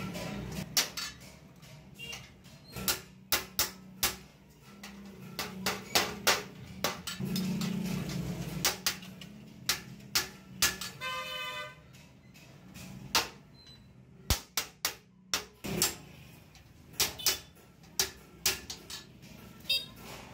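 Hand hammer tapping a galvanized sheet-steel bucket as its rim and seam are worked. The sharp metallic strikes come irregularly, often in quick groups of two or three, over a steady low hum. A brief pitched tone sounds about eleven seconds in.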